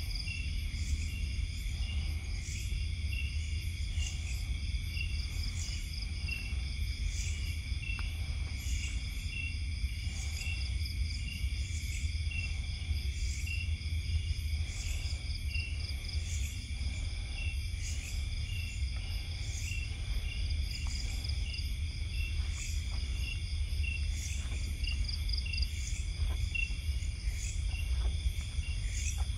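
Night chorus of crickets and other insects: several steady high-pitched trills overlapping, one of them pulsing at an even, quick beat, over a constant low rumble.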